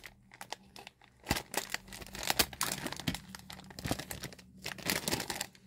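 Clear plastic bag crinkling as it is handled and moved about, with small toy figures inside: a long run of irregular crackles, busiest after about a second.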